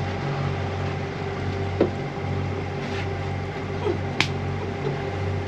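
A boat's engine droning steadily, with a slow pulsing in its low hum, and two short sharp taps about two and four seconds in.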